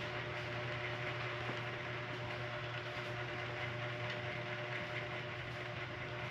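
Steady electrical hum with a constant hiss, unchanging throughout, with no distinct knocks or other events.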